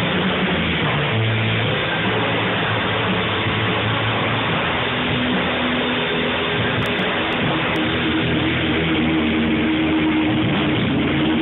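Loud live rock music: distorted electric guitar and bass sustaining long low notes over a dense, noisy wash.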